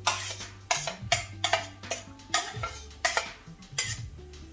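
A spoon scraping and knocking against a cooking pan, about a dozen irregular strokes, as food is stirred and fried, over background music with a bass line.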